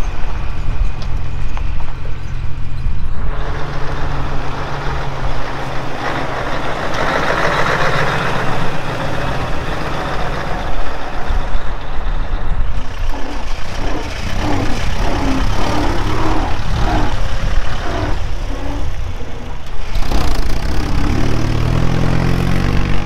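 Heavy truck engine running loud and low as it drives past, with a long hiss about six seconds in. The engine pitch rises near the end as it pulls away.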